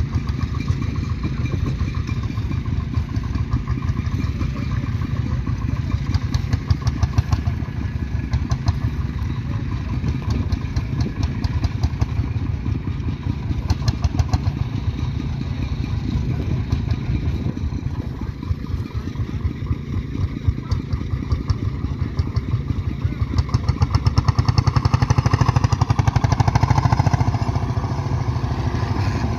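Vintage tractor engines running steadily under load while pulling ploughs. The engine sound grows louder for a few seconds near the end.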